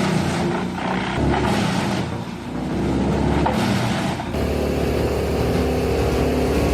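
Heavy machinery running: an uneven, noisy mechanical sound that switches abruptly, about four seconds in, to a steady engine hum.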